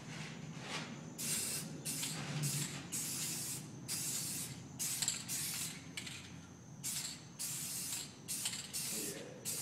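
Aerosol spray paint can hissing in a run of short bursts, about one to two a second, as lines are sprayed onto a wall. The bursts start about a second in.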